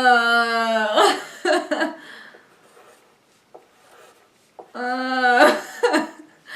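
A person's voice making a long, drawn-out vocal sound at one steady pitch, broken off into short laughing bursts; the same pattern comes again about five seconds in.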